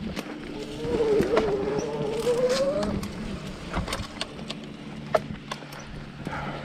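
Electric mountain bike's hub motor whining under power, its pitch wavering and then climbing for a couple of seconds before easing off, over a steady low hum. Sharp knocks and rattles come from the bike jolting over the rough trail.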